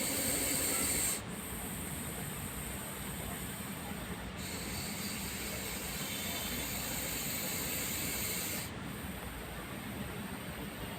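Russell's viper hissing in long breaths as a defensive warning: a strong hiss in the first second, a weaker one for a few seconds, then another long strong hiss from about four to eight and a half seconds in.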